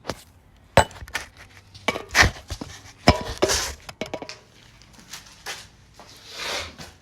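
Irregular clicks, clinks and knocks with a few short rustles, like things being handled and set down.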